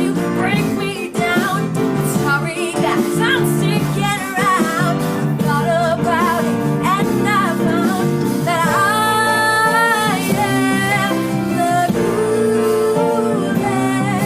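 A pop song with a voice singing over guitar and band accompaniment. A long held note comes a little past the middle, then glides down.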